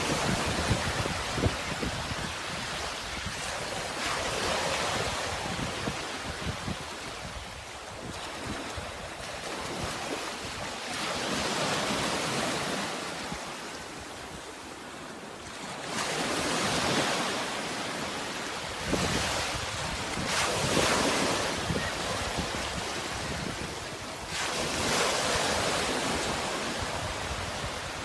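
Sea waves washing onto the shore, the surf swelling and falling back every few seconds, with wind buffeting the microphone.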